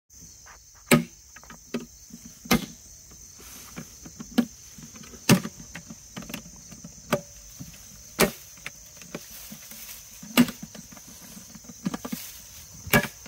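Sharp metal clicks and knocks every second or two as a metal carrying case is handled and its latches are undone, over a steady high trill of insects.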